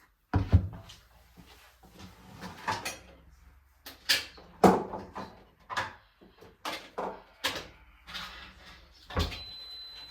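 A string of separate knocks and clunks as kitchen items are handled and set down while food is being prepared. The loudest comes about half a second in.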